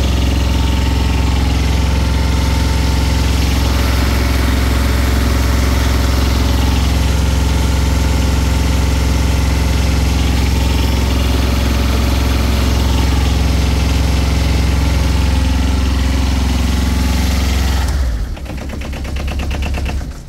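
Drain jetter's engine running steadily at a constant speed, then shut off about eighteen seconds in, chugging as it runs down and stopping near the end.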